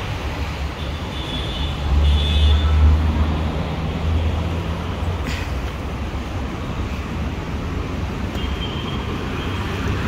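Steady low vehicle rumble. A faint high tone comes in twice, and there is a single short click about five seconds in.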